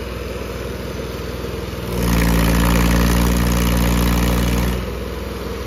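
Mahindra 275 DI tractor's three-cylinder diesel engine idling, then run up louder for about three seconds as the tractor pulls away with its trailer, and dropping back to idle near the end.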